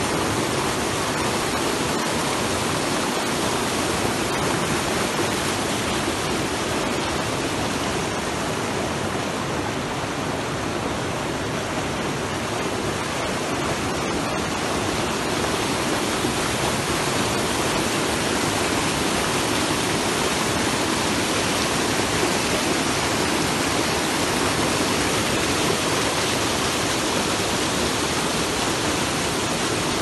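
Rocky mountain stream rushing over stones and between boulders: a steady, even rush of water.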